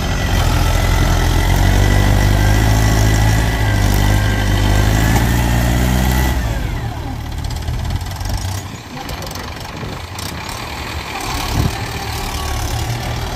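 Mahindra tractor's diesel engine running hard for about six seconds, then easing off to a quieter, lower run.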